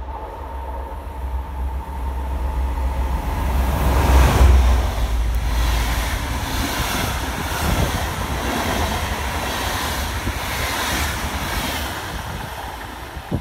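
Passenger train passing close through a station at speed. A heavy low rumble swells to its loudest about four seconds in as the locomotive goes by, then the coaches follow with a steady rushing noise and irregular wheel clacks, easing off near the end.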